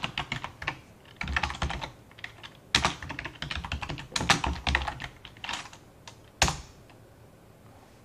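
Typing on a computer keyboard: quick irregular bursts of keystrokes, ending with one louder single key stroke about six and a half seconds in.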